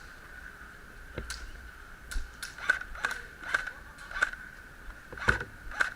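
Irregular light clicks and taps, several in a row, over a thin steady high-pitched tone.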